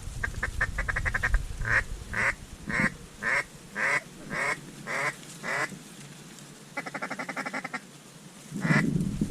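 Mallard duck call: a quick rattling feed chuckle, then a string of about eight evenly spaced quacks about half a second apart, a short pause, and another rapid chuckle.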